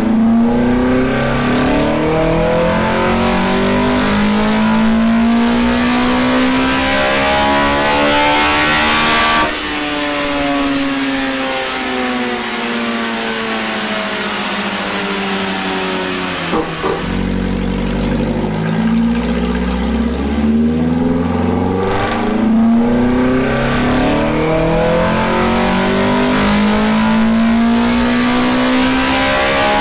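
Toyota 4A-GE twin-cam four-cylinder with individual throttle bodies on a dyno pull. Its pitch climbs steadily for about nine seconds, then falls away as it winds back down. After a click around seventeen seconds in, a second pull starts and climbs again.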